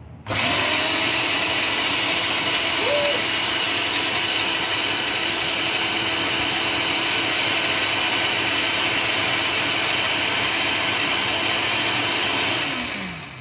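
Countertop blender with a glass jar blending a milk and sugar-syrup mixture: the motor starts abruptly and runs at a steady pitch. Near the end it is switched off and its whine falls in pitch as the motor winds down.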